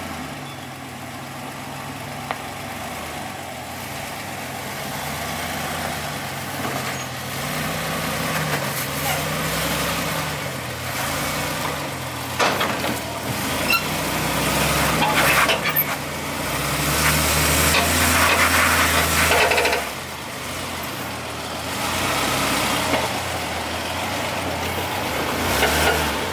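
Nissan Patrol wagon's engine working at low speed as it crawls over rock ledges, the revs rising and falling. It is joined by a few sharp crunches from the tyres on the rock, and it runs louder for a few seconds past the middle.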